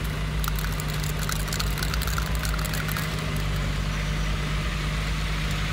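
Heavy diesel engine of earth-moving machinery running steadily at idle, with a flurry of sharp clicks and rattles from about half a second to three seconds in.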